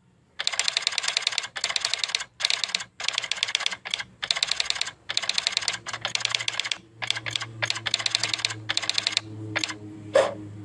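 A prenjak kepala merah, a small songbird, giving fast dry clicking trills in about a dozen short bursts in quick succession, used as a lure call for birds that have stopped singing. A single sharp click comes near the end.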